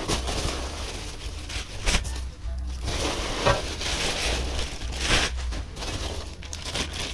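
Hands rummaging through foam packing peanuts in a cardboard box and pulling out a crinkling plastic bag: a steady rustle with louder swells about two, three and a half and five seconds in.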